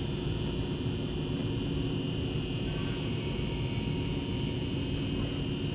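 A steady hiss with a low hum under it, unchanging, with no distinct knocks or calls.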